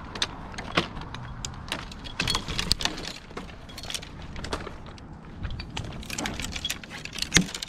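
Irregular light metallic clinks and knocks, with a sharper knock near the end; no chainsaw running.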